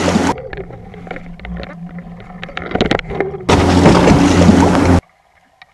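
Wind and water noise on an action camera's microphone aboard a fishing boat at sea, with a steady low hum, switching abruptly on and off. In a quieter stretch in the middle, small clicks and knocks of fishing gear being handled.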